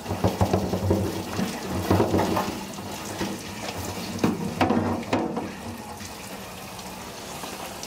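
Water pouring out of a boat fuel tank's pipe fitting and splashing onto concrete as the tank is flushed with a hose to wash out old gasoline and debris.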